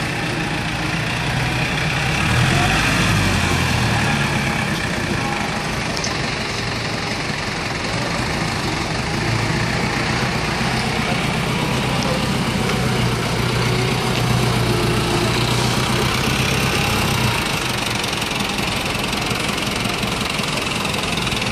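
Forklift engine running as the truck is driven, a steady low drone. It swells a couple of seconds in, holds a steady note through the middle, and drops back about seventeen seconds in.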